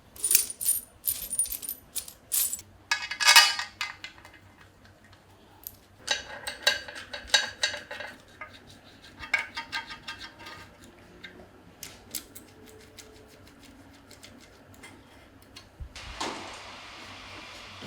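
Metal engine parts and hand tools clinking and tapping in short clusters of ringing clicks during engine reassembly. About two seconds before the end a steady hiss-like noise starts.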